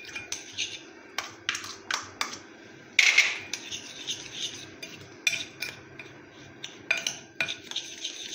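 A spoon beating jaggery powder and ghee in a glass bowl, scraping and clinking against the glass in uneven strokes, with the loudest scrape about three seconds in.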